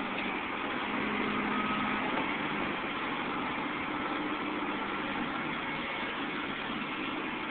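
Caterpillar 235 hydraulic excavator's diesel engine running steadily, swelling a little about a second in.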